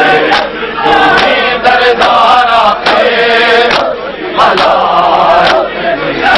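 Crowd of men chanting a mourning lament (noha) together, with sharp chest-beating slaps of matam falling roughly once a second in time with the chant.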